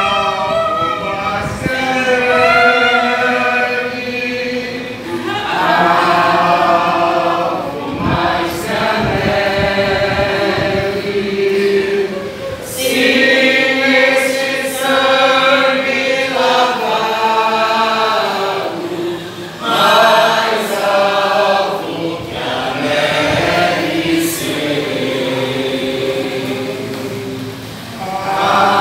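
A small group of voices singing a slow worship song together, with long held notes and short breaks between phrases.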